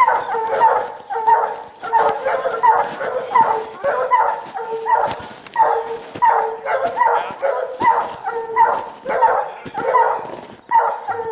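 Hunting hounds barking steadily at a cougar they have treed, about two barks a second.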